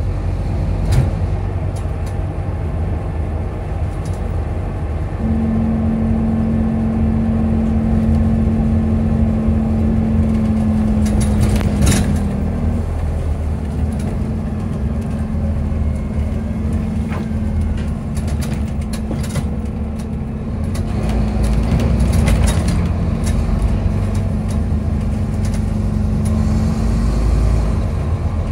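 Scania double-decker bus heard from inside the upper deck: a steady low engine drone, with a steady whine that sets in about five seconds in, breaks off briefly, resumes a little lower and fades near the end. Scattered rattles and clicks of the bus body sound over it.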